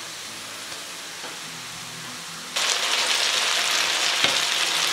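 Moose meat frying in hot oil with onions in a pan: a quiet sizzle that jumps suddenly to a loud, steady sizzle about two and a half seconds in, once the pan is filled with a layer of meat.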